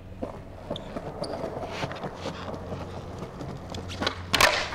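Skateboard wheels rolling over smooth stone tiles with a few light clicks, then a loud clack and clatter of the board near the end, as the deck hits the ground during a 360 flip attempt.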